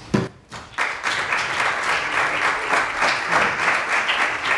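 Audience applauding, building in about a second in after a brief knock at the very start.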